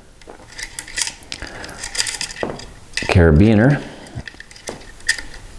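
Small metallic clicks and clinks: a carabiner and stainless steel cable fittings being handled and clipped together by hand.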